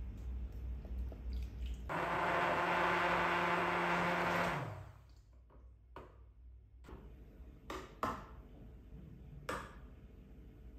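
Handheld immersion blender running in a bowl of pumpkin and milk for about two and a half seconds, puréeing it, then winding down with a falling pitch. A few light clicks and taps follow.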